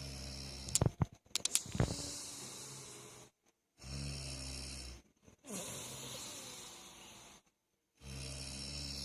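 A sleeping person snoring heavily: a string of about five low snores, one every second and a half to two seconds, with short silent gaps between them. A few sharp clicks come in the first two seconds.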